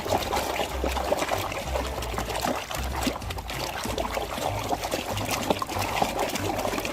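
Water pouring and trickling over a muddy toy vehicle as it is washed, with scattered small clicks and splashes from the toy being handled.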